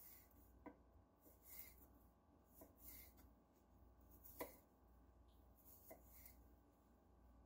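Faint, irregular taps of a chef's knife through garlic cloves onto a wooden butcher-block cutting board, about half a dozen strokes, the loudest a little past the middle, over otherwise near silence.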